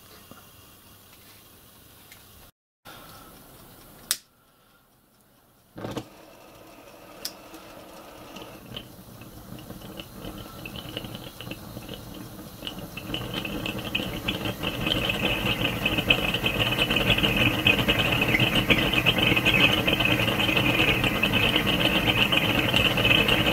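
Propane gas burner for a 5-inch gauge model steam locomotive coming alight about six seconds in. Its flames grow steadily louder over several seconds as the gas valve is opened up, then burn with a steady rushing hiss.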